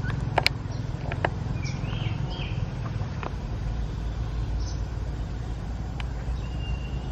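Outdoor ambience: a steady low rumble, with a few sharp clicks and short high chirps scattered over it.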